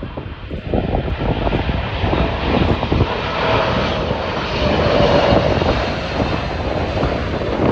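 Boeing 777 jet engines roaring as the airliner comes in to land, swelling in loudness, with a faint whine in the middle. Gusty wind buffets the microphone throughout.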